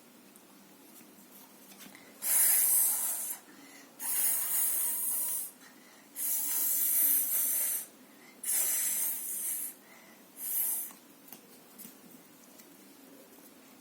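A person making five drawn-out, voiceless hissing speech sounds one after another, each lasting about a second, as letter sounds are pronounced for a phonics lesson.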